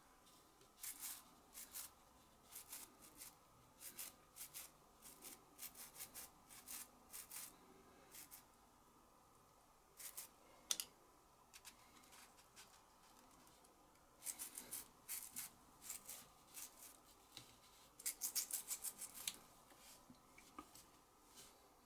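Faint, irregular small clicks and scrapes of a tool and fingers working on the small parts of a butane lighter's valve assembly, coming in quick runs now and then.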